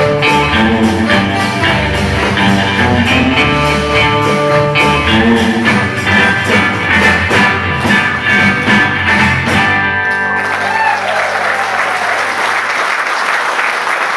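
Live band playing an electric-guitar-led rock-and-roll instrumental, which ends about ten seconds in; audience applause follows.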